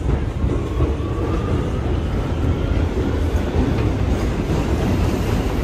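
R211T New York City subway car running at speed, heard from inside: a steady rumble of steel wheels on rail with some clatter, and a faint thin whine that rises slightly during the first half.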